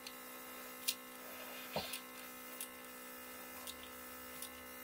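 Steady electric hum from the airbrush painting equipment in a hobby spray booth, with a few faint ticks.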